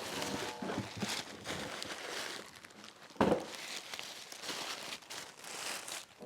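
Packaging rustling and crinkling as a gift box is opened and searched, with one sharper, louder crackle about three seconds in.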